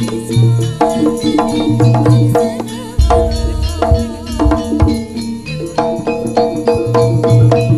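Javanese gamelan playing jaranan music: fast, repeating strikes on tuned bronze percussion over low drum beats, with the drumming heaviest from about three seconds in.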